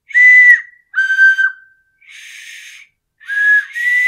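Small plastic wind flute blown in four short toots that switch between two high notes, with one breathy blow about halfway through that gives almost no note. The player is a beginner who says he could do with more practice.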